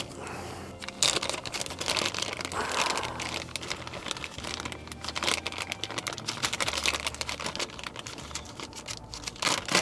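Rapid, irregular small clicks and plastic crinkling as a new glow plug, its wiring connector and packaging are handled.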